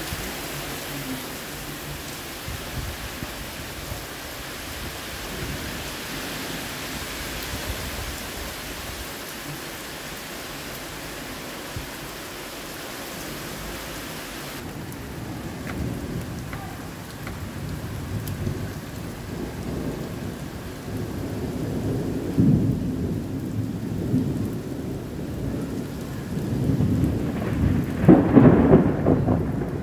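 Heavy rain pouring steadily during a thunderstorm. About halfway through, the hiss of the rain suddenly drops away and low thunder rumbles in, building to its loudest near the end.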